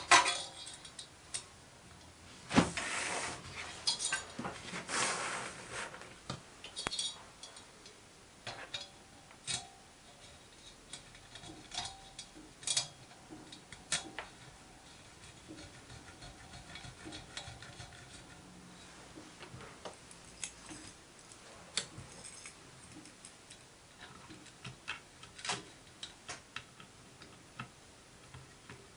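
Scattered metallic clicks and clinks of small brass steam fittings being handled and fitted by hand, with a few short rustles.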